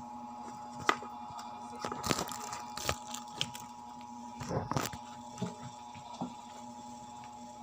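Handling noise of a phone's microphone: rubbing and scattered knocks as it is moved against skin and hair, over a steady electrical hum.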